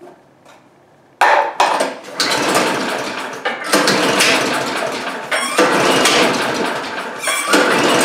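Pull-starting the Chinese Honda-clone engine on a walk-behind leaf blower. About four long pulls on the recoil starter begin about a second in, one every couple of seconds, each a long noisy rush as the engine turns over. It does not fire at all, even on starter fluid, a no-start that the owner first took for a spark problem.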